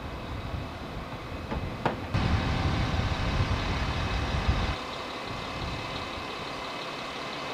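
Truck engine running steadily, with a sharp knock about two seconds in, then a louder low rumble that drops back suddenly about five seconds in.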